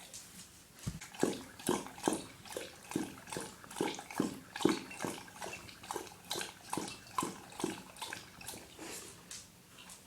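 Dog lapping water from a bowl: a steady rhythm of wet laps, about two and a half a second, starting about a second in and easing off near the end.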